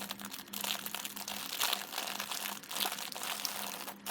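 Packaging crinkling as it is handled, a dense run of small crackles with a faint steady hum underneath.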